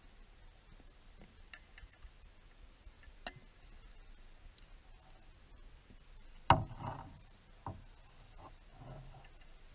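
Underwater camera audio: scattered faint clicks and ticks, with one sharp knock about six and a half seconds in followed by a short low rumble, and a smaller knock about a second later.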